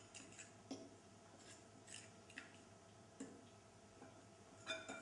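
A metal fork stirring beaten eggs and grated parmesan in a ceramic bowl: faint, irregular clicks and scrapes of metal on ceramic.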